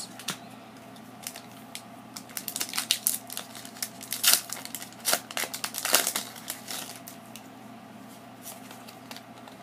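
A Pokémon card booster pack's foil wrapper being torn open and crinkled by hand: a quick run of sharp crackles, the loudest about four and six seconds in, settling to quieter rustling as the cards come out.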